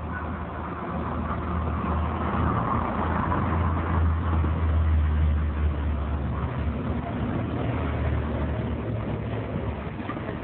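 Motor vehicles passing by with a low engine hum, the sound swelling to a peak about halfway through and then fading.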